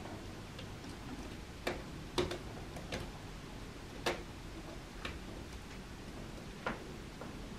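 A cat biting and chewing fresh cat grass: sharp, irregular snapping clicks, about eight in all.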